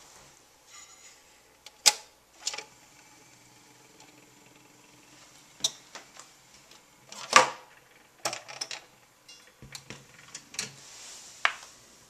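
Scattered sharp clicks and knocks of handling on the wooden console cabinet, a few seconds apart, over a faint steady hum; no music is heard from the record.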